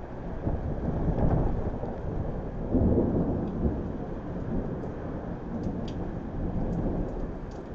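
Rolling thunder: a long low rumble that swells about a second in and again, loudest, around three seconds in, then slowly fades away.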